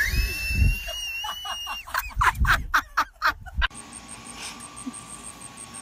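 A person's high-pitched yell that rises and is held for almost two seconds, followed by a quick run of short, sharp sounds that stops abruptly, leaving a much quieter background.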